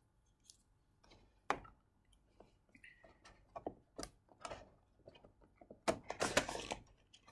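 Cardboard packaging being handled and opened: scattered light taps and clicks of fingers on the box, then a louder scrape of cardboard sliding about six seconds in as the inner packaging is pulled free.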